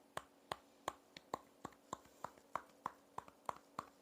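Hands patting a person's upper back in a steady rhythm of about three light pats a second: chest percussion to loosen phlegm in a coughing, breathless person.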